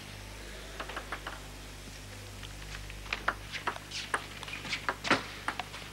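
Table tennis ball clicking off the bats and the table in a rally: a few sharp ticks around a second in, then a quicker run of ticks from about three seconds on.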